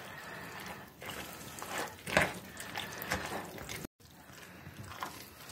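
A metal spoon stirring grated beetroot salad dressed with mayonnaise in a glass bowl: a run of uneven, wet mixing strokes.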